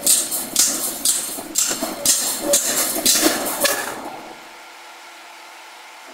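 Power hammer striking a top tool on a red-hot round steel bar, about two blows a second. The blows stop about four seconds in, leaving a steady machine hum.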